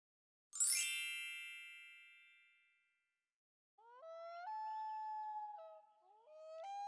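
Intro sound effect: a single bright bell-like ding about half a second in that rings out over a couple of seconds. Then, from about four seconds, a clear tone that slides up and holds, stepping between notes.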